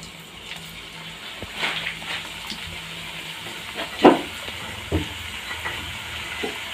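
Potato slices deep-frying in hot oil in a nonstick pan, with a steady sizzle. A few short, louder spurts come as more slices go into the oil, the strongest about four seconds in.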